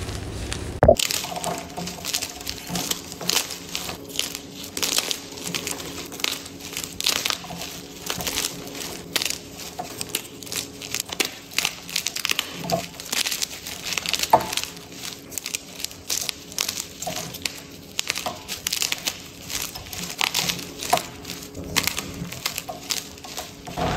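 Hands squeezing and crumbling blocks of gym chalk, fresh and reformed, into chunks and powder: a dense run of crisp crunches and crackles. The sound changes suddenly about a second in.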